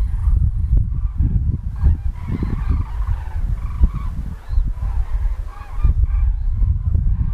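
A flock of common cranes calling in flight overhead: many short, overlapping calls follow one another throughout. Beneath them runs a strong, uneven low rumble.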